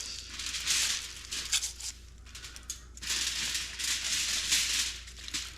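Crinkling, rustling handling noise as lemongrass stalks are pushed into the belly of a gutted striped bass, in two stretches with a quieter pause about two seconds in.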